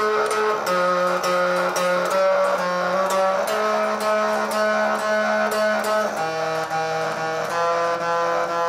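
Bass guitar played through a breadboard Fuzz Face distortion circuit and a small LM386 amplifier into a bass speaker: quickly picked notes in a repeating line, the pitch stepping every second or so, with a distorted, overtone-rich tone and little deep bass.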